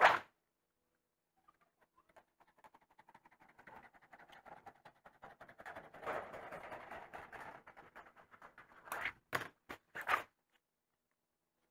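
A sheet of metal scraping as it slides out of a wooden storage rack, a crackling rustle that builds for several seconds. Then come a few sharp clanks as the sheet is set down on a wooden workbench, with one sharp knock right at the start.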